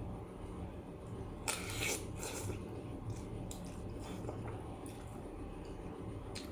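Kitchen handling sounds while cooking: two short rustling or scraping noises about a second and a half in, then scattered light clicks and taps, over a low steady hum.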